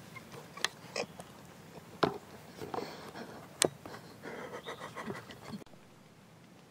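Close handling noise from a handheld camera being moved in a treestand: a handful of sharp clicks and knocks, the loudest about two and three and a half seconds in, with a man's breathing close to the microphone in between.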